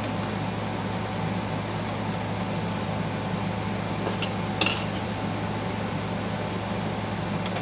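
Two brief metallic clinks about four and a half seconds in, from small metal parts of a Singer sewing machine being handled while it is threaded, over a steady hum in the room.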